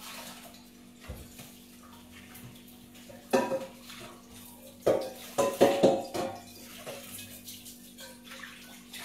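Dishes and metal utensils clinking and clattering in a kitchen sink, with water running; one loud clatter about three seconds in and a burst of several more around five to six seconds. A steady low hum runs underneath.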